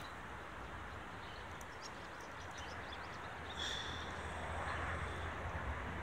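Quiet outdoor background hiss with a few faint high chirps, and a brief high-pitched call about three and a half seconds in.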